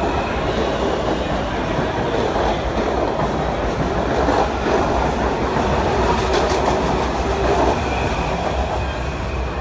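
Washington Metro train running along the station platform: a steady rumble of wheels and traction motors on the rails, swelling a little past the middle, with a short run of rail clicks about six seconds in.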